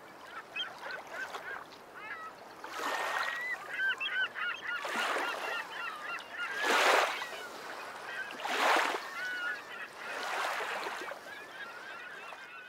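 Birds calling: a string of short, wavering calls again and again, with about five louder rushes of noise, each around half a second long, breaking in among them.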